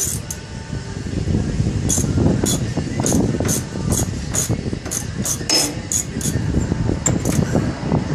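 Hand tools working on a truck's front suspension: a string of short metallic clicks and clinks, irregular and roughly twice a second, over low scraping and handling noise.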